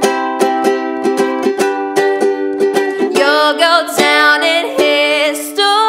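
Ukulele strummed in steady chords. About three seconds in, a girl's singing voice joins over the strumming with a held, wavering melody.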